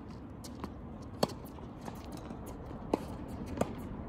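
Tennis ball in play during a rally: sharp pops of racket strikes and ball bounces on a hard court, the loudest about a second in and two more near the end, over a low steady background noise.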